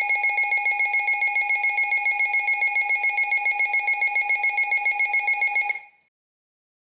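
Electronic emergency alert tone: a loud, steady two-note ringing tone that pulses about eight times a second, then cuts off suddenly about six seconds in. It is the attention signal that introduces a new warning message.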